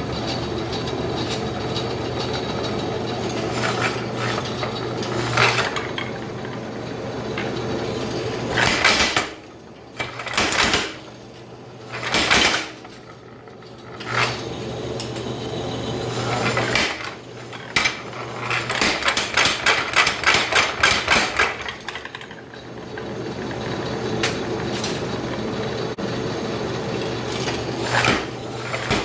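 Power hammer running with a flatter under the ram, hammering the work in runs of rapid, evenly spaced blows, about four or five a second, over the machine's steady hum, with two brief quiet breaks.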